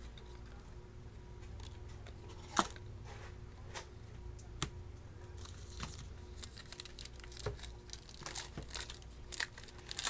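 Trading-card pack wrappers being torn open and crinkled, with a sharp snap about two and a half seconds in, another near the middle, then a dense run of crackling in the second half.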